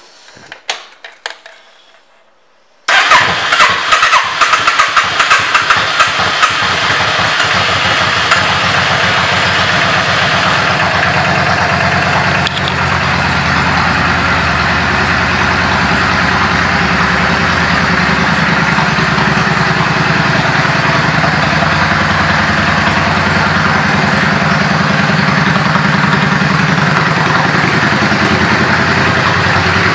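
2006 Yamaha V Star Classic's V-twin with Vance & Hines exhaust pipes starting about three seconds in. It runs unevenly for several seconds, then settles into a steady idle.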